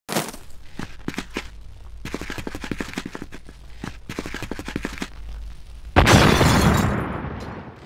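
Sound effects of a fire catching in a small trash can: rapid crackling, then a sudden loud burst of flame about six seconds in that fades away over a second and a half.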